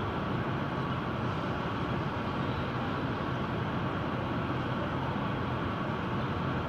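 Steady background noise: an even rush with a faint low hum, no voice.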